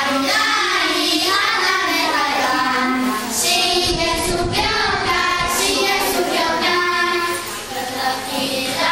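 A young boy singing a melody solo into a handheld microphone, holding some notes.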